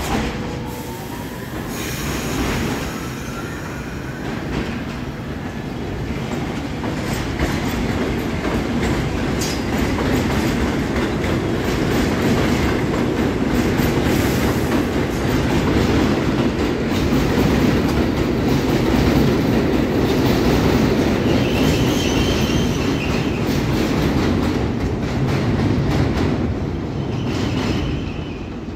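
R62A subway trains on an elevated line. One pulls away with a rising motor whine while another rolls close past, its wheels clicking steadily over the rail joints. The wheels squeal briefly a few times near the end.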